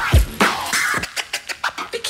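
Background hip-hop style music with a drum beat and scratch-like sounds.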